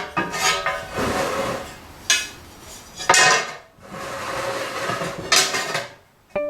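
Scraping strokes and light clinks on a ceramic tile as lines are drawn along a triangle to mark out a square: about five separate strokes with short gaps between them.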